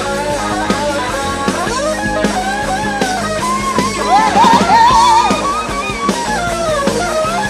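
Instrumental passage of a rock song: electric guitar playing a lead line with bent, wavering notes over bass and drums. The lead peaks about four to five seconds in.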